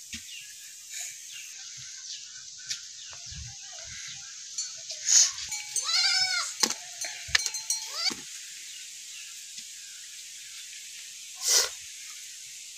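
A goat bleating, one wavering call about six seconds in, over a steady high background hiss, with a short burst of noise near the end.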